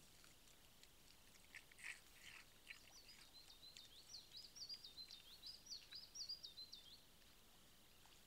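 Faint birdsong: a small bird sings a quick run of repeated high, wavering notes for about four seconds, beginning about three seconds in. A few faint short clicks and rustles come just before it.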